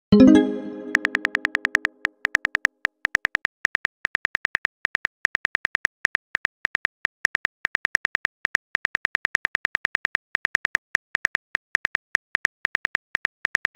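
Phone keyboard key-click sounds, several taps a second, as a text message is typed out. Just before them, a short pitched tone fading over about two seconds as a message is sent.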